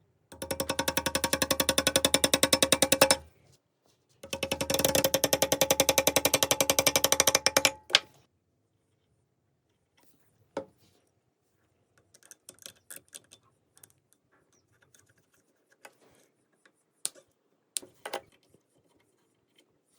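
Music with a fast, evenly pulsing beat in two phrases of about three seconds each, followed by scattered light clicks and knocks.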